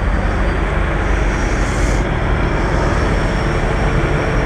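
Semi-truck diesel engines idling close by: a steady, loud rumble with no break.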